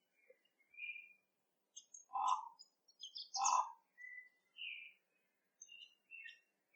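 Common raven giving two loud calls about a second apart, set against many short, faint high chirps.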